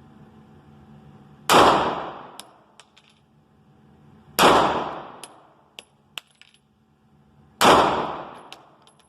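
Three gunshots about three seconds apart, each with a long echoing tail, followed each time by light metallic tinkles of spent brass casings landing.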